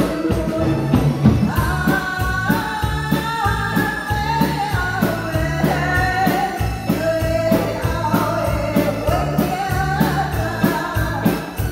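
A woman singing into a microphone with a live band: a drum kit keeping a steady beat, with electric bass and keyboard.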